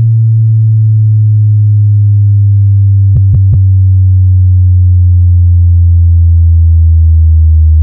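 Synthesized sub-bass test tone: one long, loud, deep hum that slides slowly down in pitch, with three quick clicks a little past three seconds in.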